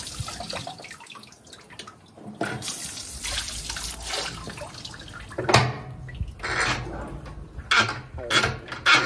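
A boat's outdoor shower head spraying a stream of water that splashes into the harbour water. In the second half come several sharp knocks and rattles as the shower head and hose are handled and stowed.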